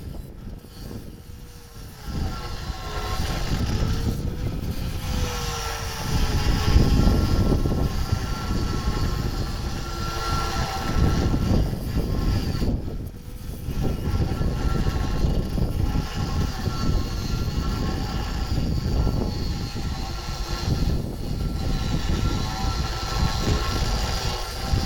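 Loud, steady machine noise with a whine in it that wavers in pitch; it swells a little louder about six seconds in.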